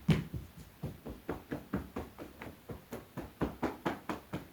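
Hands tapping on the legs in qigong meridian tapping: a steady, even run of light pats, about four to five a second.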